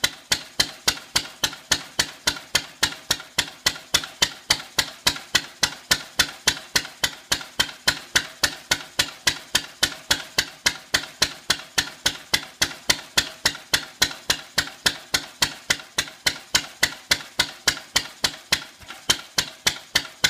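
Lister A Junior single-cylinder petrol stationary engine running on its first run after restoration, firing with a sharp bang about four times a second at a steady, even rate. Its settings are still only roughly set.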